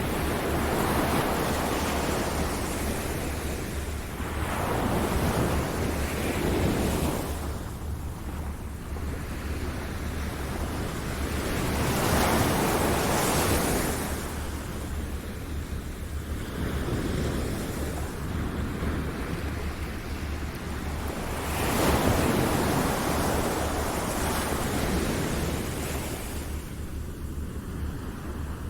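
Ocean waves breaking and washing ashore, an even rush of surf that swells and falls back every few seconds, with the biggest surges about twelve and twenty-two seconds in.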